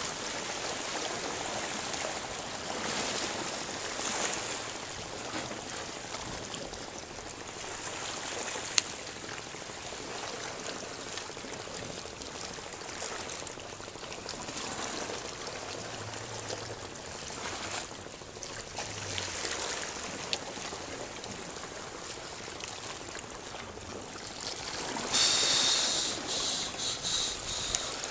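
Small waves lapping and washing against shoreline rocks, rising and falling in gentle swells, with a single sharp click about nine seconds in. Near the end a louder high hissing stretch comes in, pulsing a few times.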